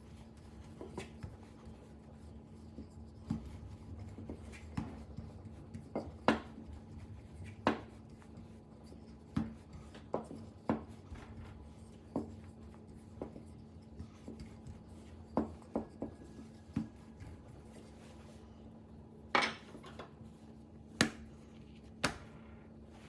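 Dough being rolled out with a rolling pin on a work surface: irregular light knocks and clicks as the pin is handled and set against the board, over a faint steady hum.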